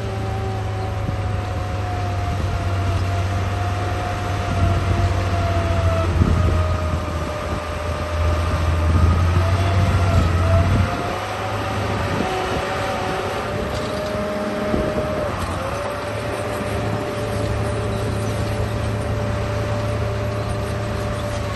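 Radio-controlled bulldozer running: a wavering motor whine over a steady low hum and crackling drive noise, with the low hum easing off about eleven seconds in.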